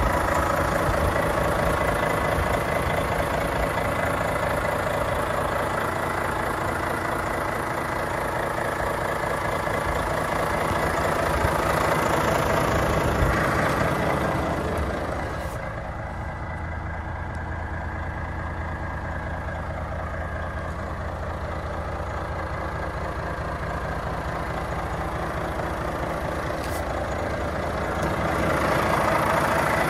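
Volvo FH500's 13-litre straight-six diesel idling steadily. From about halfway through until near the end it turns muffled, heard from inside the cab.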